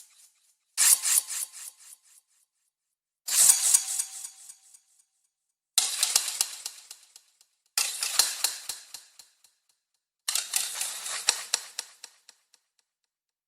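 Sword drawn from its scabbard, five times in a row: each draw is a bright metallic scrape that starts sharply and fades away over a second or two.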